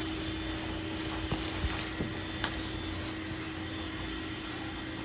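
Robot vacuum running: a steady motor whir with a constant hum tone and a few light clicks.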